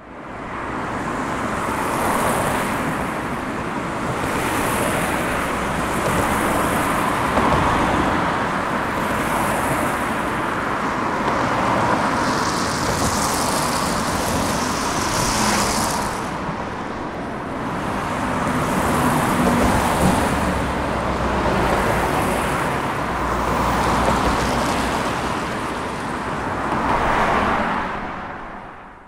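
Highway traffic: a continuous rush of tyre and engine noise from cars passing, swelling and easing every few seconds as vehicles go by.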